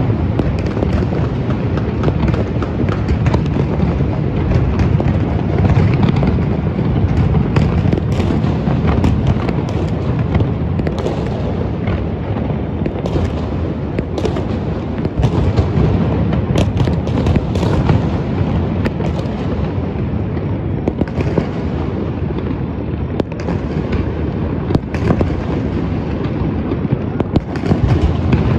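A dense, continuous barrage of fireworks and firecrackers: booms merging into a steady rumble, with many sharp cracks and pops on top.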